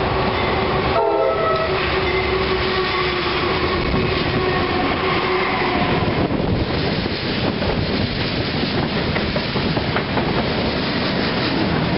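CSX freight train led by a GE CW40-8 diesel locomotive, blowing its multi-note air horn as it comes up and passes close by; the horn's notes shift about a second in and the horn stops about six seconds in. After that come the rumble and clatter of freight cars' wheels rolling over the rails.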